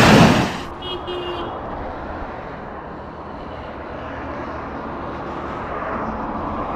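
Road traffic passing at the roadside, a steady noise that grows a little louder toward the end as a car approaches. In the opening half-second a loud rushing noise cuts off abruptly, and about a second in there is a brief high tone.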